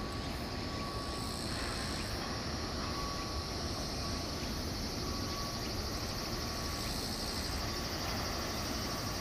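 Insects buzzing in a steady high chorus, over a low, steady background rumble.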